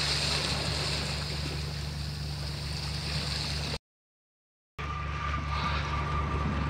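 Sea water washing and sloshing against shore rocks, over a steady low hum. The sound drops out completely for about a second near the middle, and a faint steady high tone runs after the gap.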